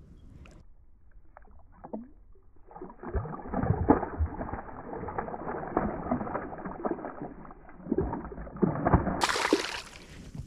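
Water sloshing and splashing with scattered knocks. From about three seconds in it sounds muffled and dull, then opens up again near the end.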